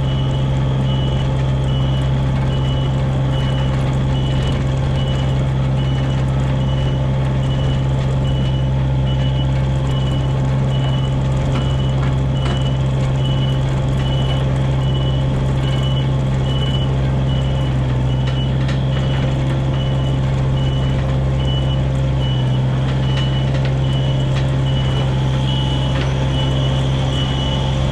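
Diesel engine of a Komatsu PC27 mini excavator running steadily, with its travel alarm beeping in short, evenly spaced beeps.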